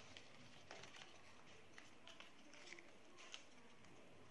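Faint rustling and small crinkles of origami paper being creased and folded by hand, in scattered soft ticks over a low hiss.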